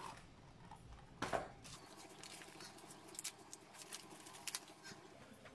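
Clear plastic wrapping crinkling and crackling in irregular snaps as hands handle a wrapped box, after a single thump about a second in.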